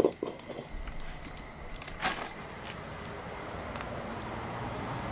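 An iron kadhai is knocked into place over a wood fire, with a few clanks at the start and another knock about two seconds in. Then a soft hiss builds as cooking oil starts pouring into the pan. A steady high insect chirring runs underneath.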